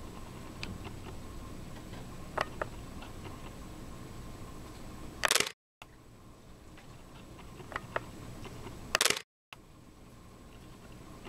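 Canon PowerShot S5 IS shutter clicking twice, a little under four seconds apart, as it takes still photos while recording video. Each click is followed by a brief total dropout of the sound, over a steady low hum with a few faint ticks.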